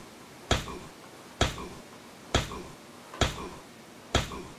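Repeated kicks landing, five sharp smacks evenly spaced just under a second apart.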